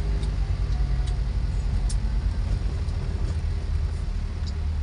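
Car on the move: a steady low rumble of engine and road noise, with a few light clicks.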